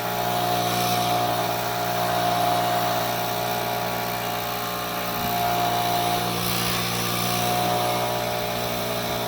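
A machine or engine running steadily: an even low hum with a steady high whine over it, holding the same pitch throughout.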